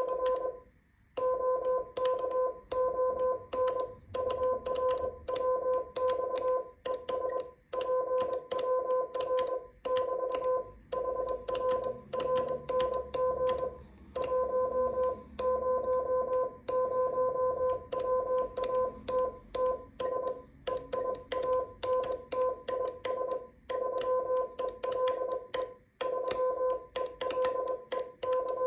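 Morse code being sent on a hand paddle, heard as a low buzzy sidetone keyed in dots and dashes with sharp clicks at each element. The signal is a typical amateur-radio contact exchange: callsigns, then transmitter power and a 3-element Yagi antenna.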